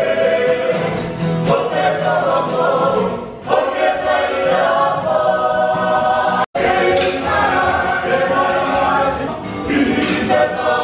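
A mixed group of Māori performers singing together in chorus, with guitar accompaniment. About six and a half seconds in the sound cuts out for an instant, then the group singing carries on.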